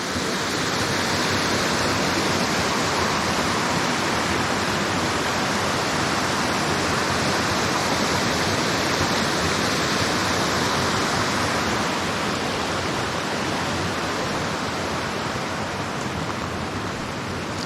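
Small creek waterfall: water pouring over a drop, a steady, even rush that eases slightly in the last few seconds.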